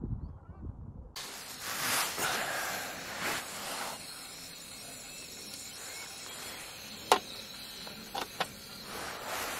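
A muffled low rumble for about the first second, then a sudden change to a steady hiss, louder for a few seconds, with three sharp clicks near the end.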